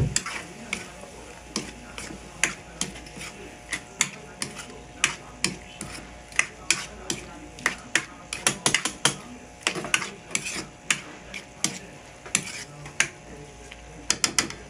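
A spatula scraping and knocking against a pan as chicken pieces in sauce are stirred, in irregular sharp clicks, a few each second, that come faster around the middle.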